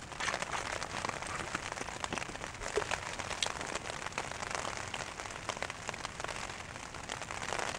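Steady rain pattering on a tent's fly sheet, heard from inside the tent as a dense run of small drop taps.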